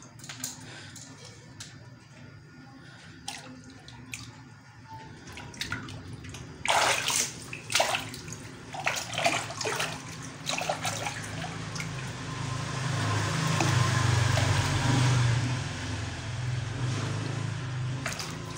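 Water in a small walled fish pond: quiet drips and trickling at first, then from about seven seconds in a run of sharp splashes, followed by steady sloshing and rushing as the water is stirred up.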